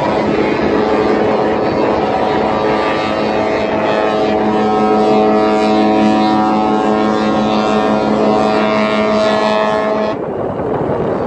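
AIDAdiva cruise ship's horn sounding one long, steady blast that cuts off sharply near the end.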